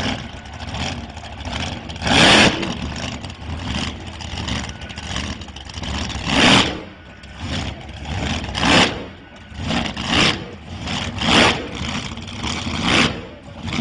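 Jet engine mounted in the back of a school bus, running with a low rumble and fired in a series of loud, short blasts, each about half a second long, coming one to four seconds apart and closer together towards the end.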